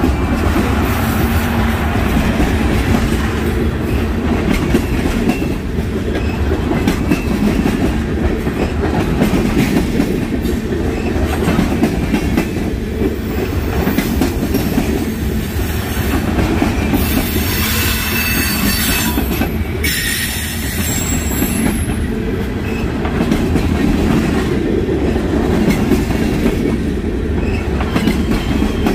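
Cars of a long freight train rolling past, their wheels clacking over the rail joints, with a high wheel squeal for a few seconds about two-thirds of the way through.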